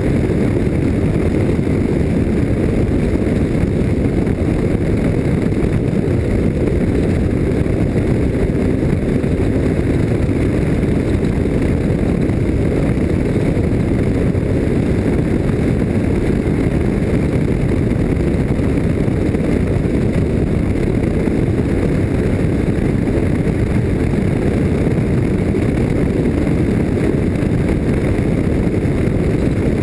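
Off-road race vehicle running flat out, a loud, steady low rumble of engine and rough terrain that never lets up.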